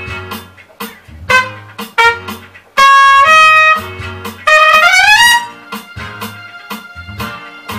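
Trumpet playing a melody over an accompaniment with a steady beat and a repeating bass line. About three seconds in it sounds two loud held notes, then a quick rising run a little after four and a half seconds.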